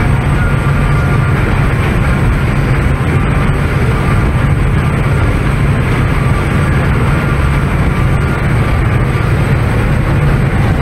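Loud, steady running of a high-speed open tour boat's engines, with strong wind buffeting the microphone.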